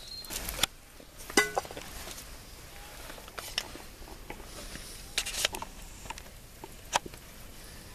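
A few scattered, sharp light clicks and taps of a knife working into the crust of a round loaf of bread, with the loaf being handled.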